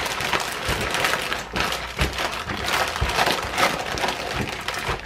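Zipper-lock plastic bag of marinating pork being massaged by hand: the plastic crinkles and rustles continuously, with a few soft thuds as the bag is pressed against the countertop.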